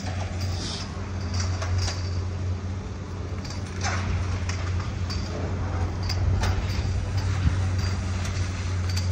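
Skis sliding over packed snow, with short scrapes of the edges every second or so, over a steady low hum.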